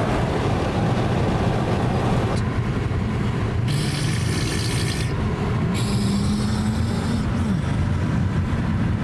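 Steady low rumble of tyres and engine inside a Toyota car's cabin cruising on a highway, with two stretches of louder hiss in the middle.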